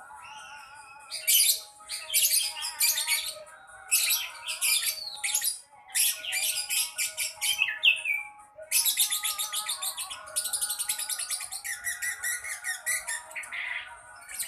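Young lovebird chattering in rapid runs of short, high calls, each run lasting a second or more with brief pauses between. This is the practice of the long chattering song ('ngekek') that a young bird is learning.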